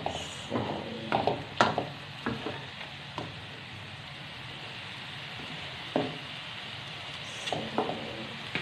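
Bean sprouts and tofu sizzling in a wok with a steady frying hiss, stirred with a spatula that scrapes and knocks against the pan. The stirring is busy for the first three seconds, pauses, then comes back briefly twice.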